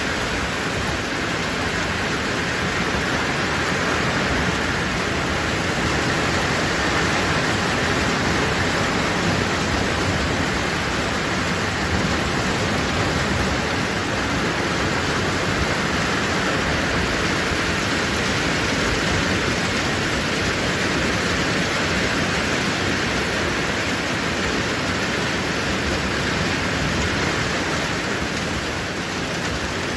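Steady, heavy rain falling, an even wash of noise that holds at the same level throughout.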